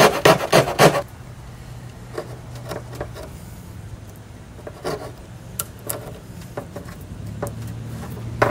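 Hand coping saw cutting a cope into a length of base trim: quick, even rasping strokes for about the first second, then slower, fainter strokes as the blade is worked around the curve of the profile.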